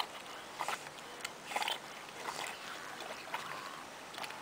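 Faint water sounds of Chesapeake Bay Retrievers swimming, with a few short soft bursts about a second apart.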